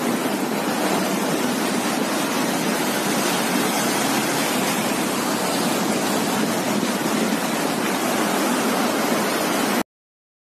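Floodwater rushing past in a swollen river, a steady, even noise of fast-flowing water that stops abruptly near the end.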